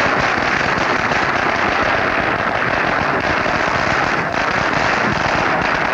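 Firecrackers going off in a dense, continuous rapid crackle, like a long string of firecrackers burning through without a break.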